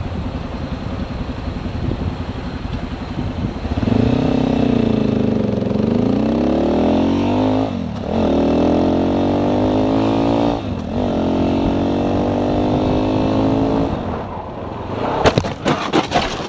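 Motorcycle engine running low, then accelerating hard through two gear changes, its pitch climbing and dropping at each shift. Near the end the engine falls away into a quick run of knocks and scrapes as the bike goes down.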